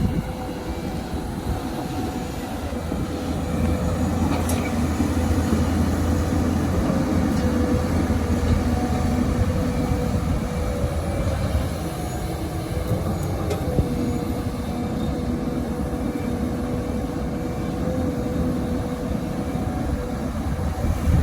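XCMG XE215C excavator's diesel engine running under working load, with a steady, slightly wavering whine held over the rumble.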